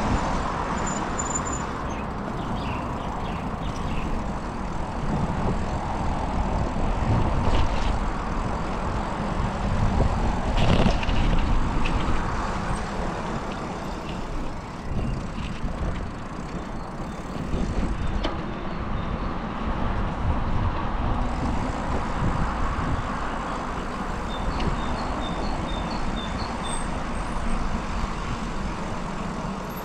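City road traffic heard from a moving bicycle: cars and trucks running by in a continuous rumble, swelling as heavier vehicles pass.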